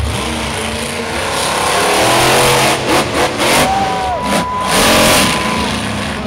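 Monster truck engine revving hard, loudest from about two to five seconds in.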